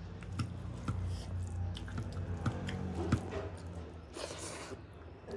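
Bare fingers mixing rice and egg curry on a plate, giving wet squishing with small sharp clicks. Near the end a handful goes into the mouth and is eaten.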